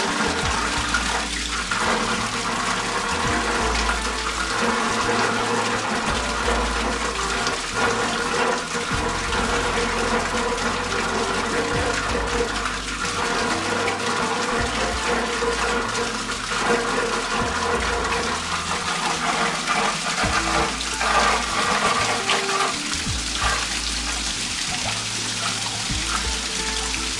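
Water gushing from a drain pipe into a bucket and splashing over a metal floor grate: the hot-water circulation line being flushed out after a riser repair. Background music plays underneath.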